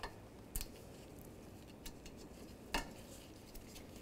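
A few sharp clicks and clacks of a small plastic shield being twisted and slid out of its clips beside the radiator, the loudest about three seconds in.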